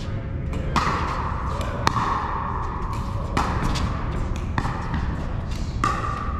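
Pickleball rally: five sharp pops about a second apart as paddles strike the hollow plastic ball, each ringing briefly in the reverberant hall, over a steady low background rumble.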